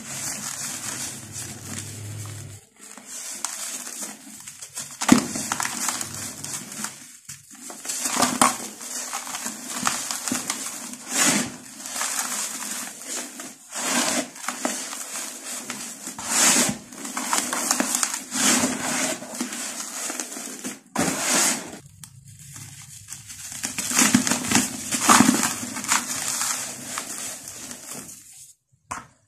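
Dry, gritty dirt crumbled, sifted and rubbed by hand in a bowl: irregular crunching and grainy hissing rustles, with a few short breaks.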